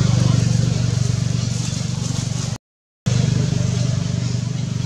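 An engine running steadily with a low, pulsing hum. The sound drops out completely for about half a second around two and a half seconds in.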